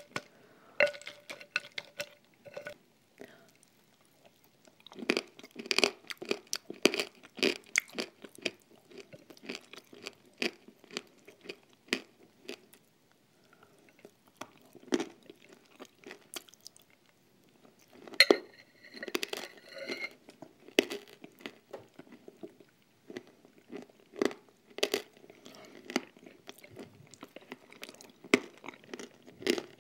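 Close-miked chewing and crunching of a thick cream mixed with crushed nut crumbs, in irregular bursts, with a metal spoon now and then clinking on a glass bowl.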